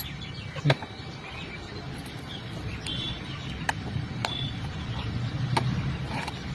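Four sharp knocks, spread unevenly, over a steady low rumble, with birds chirping briefly.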